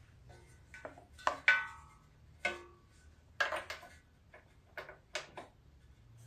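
Scattered sharp metal clinks and taps, some ringing briefly, as a new spark plug and the socket and extension knock against the small engine while the plug is being fitted.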